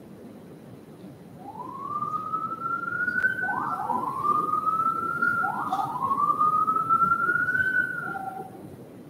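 Emergency vehicle siren wailing: three rising sweeps of about two seconds each, each dropping back sharply before the next. It starts a little over a second in and stops near the end.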